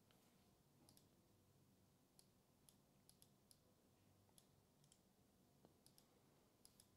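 Near silence: faint room tone with about a dozen faint, short clicks at irregular intervals.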